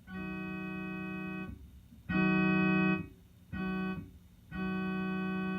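Electronic keyboard, in an organ-like voice, imitating a Leslie S2B two-chime locomotive air horn. It holds a steady chord in four blasts, long, long, short, long: the railroad grade-crossing horn signal.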